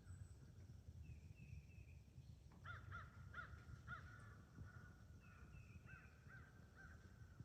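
Faint, distant crows cawing: a quick run of calls about two and a half seconds in and a few more near the end, over a low rumble of wind.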